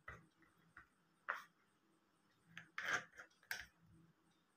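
Selfie-stick phone stand being handled and its telescoping pole pulled out: a handful of short plastic clicks and rubs at uneven intervals, the loudest cluster about three seconds in.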